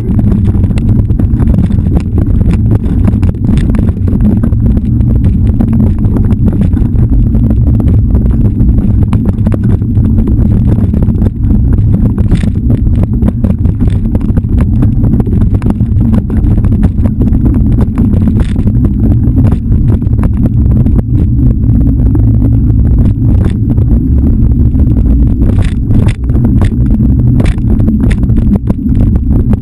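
Steady low rumble of a camera riding along a dirt trail, wind and trail vibration buffeting the housing, with a few sharp knocks from bumps along the way.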